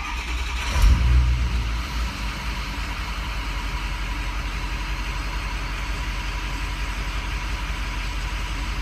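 2006 Ford Super Duty King Ranch's 6.0L Power Stroke diesel V8 being restarted hot: it cranks briefly and fires about a second in, flaring up and then settling into a steady idle. The hot restart succeeds, so the intermittent hot no-start does not show itself.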